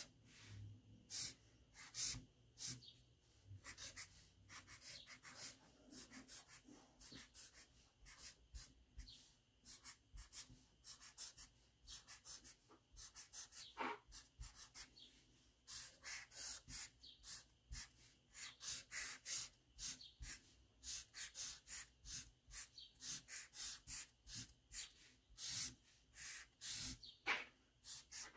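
Sharpie permanent marker drawing on paper: a faint run of short, scratchy strokes, several a second at times, as small window and door shapes are outlined.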